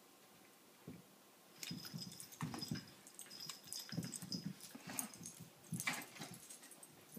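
Dogs vocalising in rough play with a kitten: short bouts of low play-growling and grumbling, starting about a second and a half in, mixed with quick scuffling clicks.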